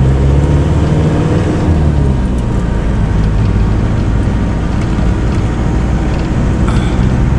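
Pickup truck's engine running and road noise heard from inside the cab while driving. The engine note climbs slightly, then drops about two seconds in.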